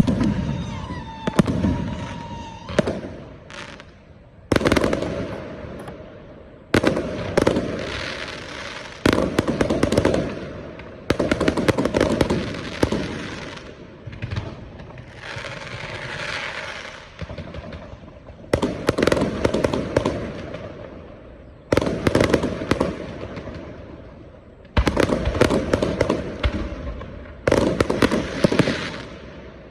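Aerial firework shells bursting one after another, a loud bang every two to three seconds. Each bang trails off in a fading crackle.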